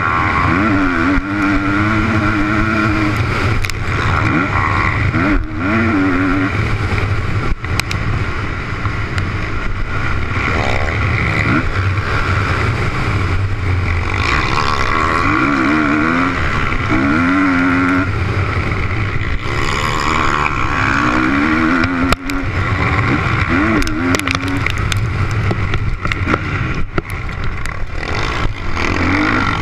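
Motocross bike engine heard from on board at race speed, its pitch rising and falling over and over as the rider works the throttle and gears around the track. A few short knocks cut through it.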